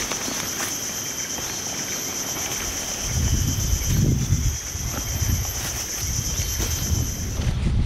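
Insects droning in one steady high-pitched tone that stops shortly before the end, over the rustling and low thumps of a backpack being unpacked by hand.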